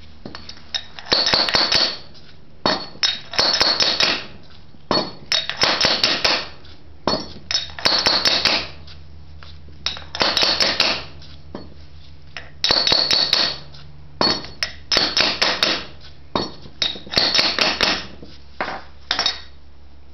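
A hand hammer tapping a steel tube set on the inner race of a carrier bearing, driving the bearing down onto the shaft. The taps come in quick runs of rapid metallic strikes, each run about a second long, with short pauses between. The bearing is catching and moving on but is not yet seated.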